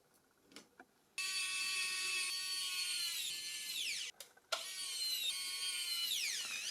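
Small electric screwdriver driving screws into a Nokia E71's housing: two runs of a high, even motor whine, about three and two seconds long, each dropping in pitch as the motor slows and stops.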